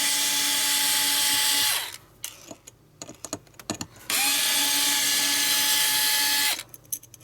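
Small electric screwdriver running in two bursts to back out a tiny screw from a hard drive's head assembly. Each burst spins up quickly to a steady whine. The first run stops about two seconds in, the second runs for about two and a half seconds from around the four-second mark, with light handling clicks between them.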